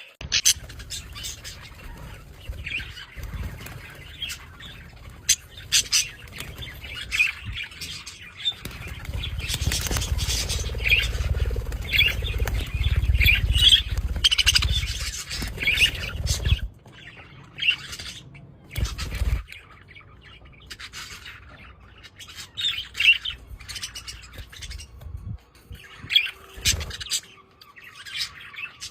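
Budgerigar colony chattering: many short chirps and squawks overlapping. A low rumble runs under them for about eight seconds in the middle, and briefly again a little later.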